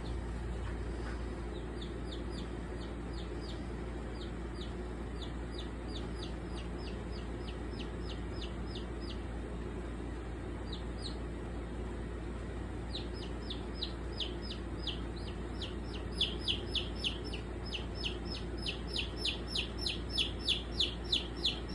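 A young chick peeping, short high notes repeated about three a second in runs, growing louder and more frequent in the second half. A low steady hum lies underneath.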